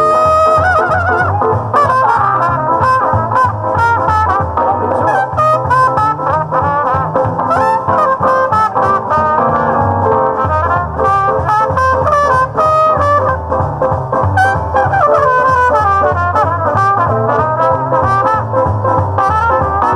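Trumpet playing a solo line over a live swing band, with bass underneath and drum and cymbal hits keeping a steady beat.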